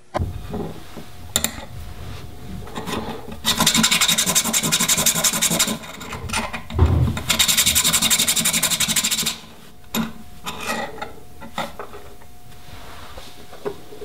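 Small metal shifter spacer being filed by hand: fast rasping strokes of metal across a flat file on a wooden bench, loudest in two long runs of rapid back-and-forth strokes through the middle, with a few light clicks and knocks as the part is handled toward the end.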